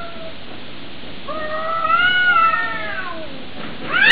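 Cats yowling in a territorial standoff: the tail of one yowl, then a long drawn-out yowl that rises and falls in pitch. Right at the end, a sudden loud screech as the cats break into a fight.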